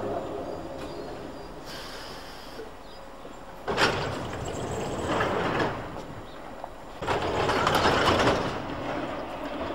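Underground train standing at a platform, with two loud bursts of hissing noise: one starting suddenly about four seconds in, and another about seven seconds in.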